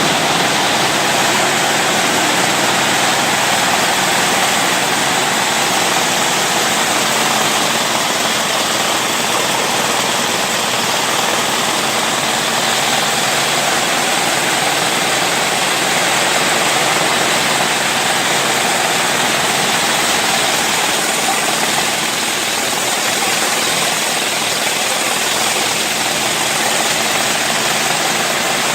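A 48-spindle braiding machine running steadily: a dense, even mechanical rush with a faint low hum underneath.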